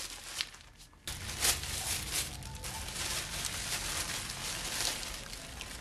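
Packaging rustling and crinkling with many small clicks and knocks as the contents are handled and taken out of a package; it gets louder about a second in.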